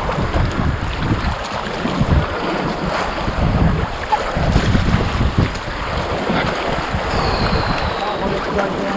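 Sea waves washing and swelling around rocks, with wind buffeting the microphone in uneven low rumbles.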